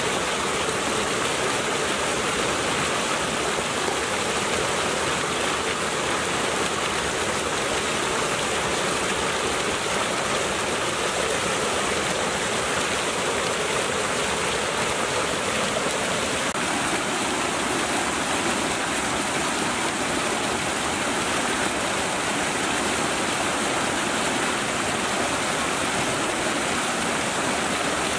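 Water pouring steadily over a small weir and churning into foaming white water below.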